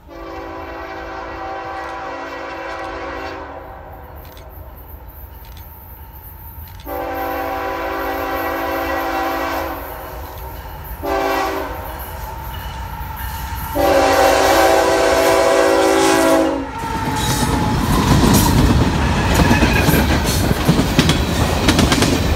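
A diesel locomotive's air horn sounds the grade-crossing signal: two long blasts, a short one, then a long one. After the last blast the locomotive and its tank cars pass close by, wheels clattering on the rails.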